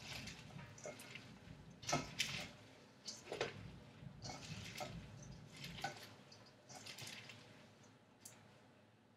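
Hands squeezing and massaging raw kale leaves coated in a thick cheesy sauce in a metal colander: faint, irregular wet squelches and leafy rustles.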